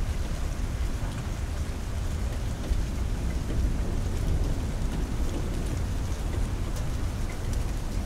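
Steady rain during a spring thunderstorm, over a constant low rumble, with scattered drops ticking.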